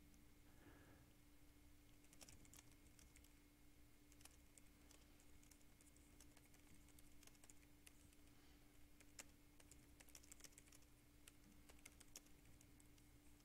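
Faint typing on a computer keyboard: irregular keystrokes with short pauses, over a steady low hum.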